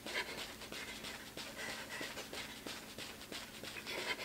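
A woman panting hard while doing high knees, her feet striking the artificial turf about three times a second.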